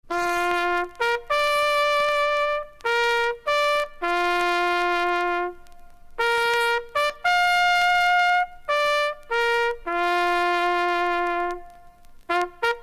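A bugle call: a single bugle plays a sequence of short notes and held notes on a few pitches. It starts suddenly out of silence.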